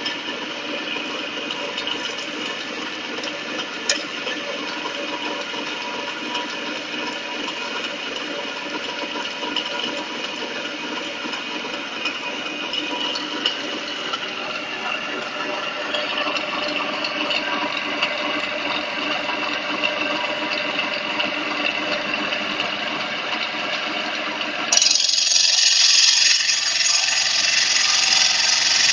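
Stone CNC router's spindle motor running with a steady machine hum and whine. About 25 seconds in the sound turns suddenly louder and harsher, a high grinding hiss as the tool bites into the stone slab.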